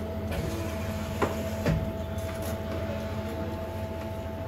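Train running, heard inside the carriage: a steady low rumble under a steady whine, with two short knocks between one and two seconds in.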